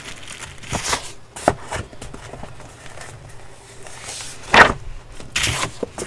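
Notebook paper pages being flipped and handled: a series of brisk rustles, the loudest about four and a half seconds in.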